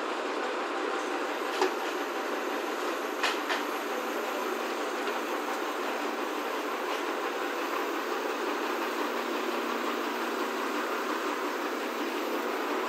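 Truck-mounted hydraulic crane running steadily as it hoists a boat, with a few sharp metallic clicks, the loudest about one and a half seconds in and two more near three and a half seconds.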